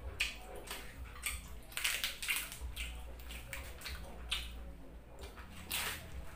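Crisp green-leaf lettuce crinkling and snapping in irregular crackles as the leaves are handled and folded by hand, then a crunchy bite into the lettuce near the end.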